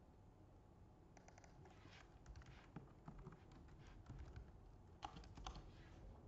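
Faint computer keyboard typing: scattered bursts of keystrokes and clicks beginning about a second in, made while editing lines of code.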